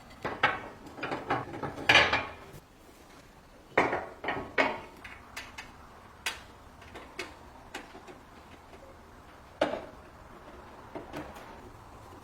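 Parts of the gas heater being handled and fitted together: irregular mechanical clicks, clacks and knocks, bunched in quick runs during the first two seconds and again around four seconds, with scattered single ticks and one sharper knock near ten seconds.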